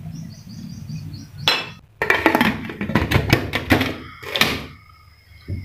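Stainless steel pressure cooker lid being set on the pot and locked shut: a series of metal clanks and clinks, with the lid ringing briefly after the last knock.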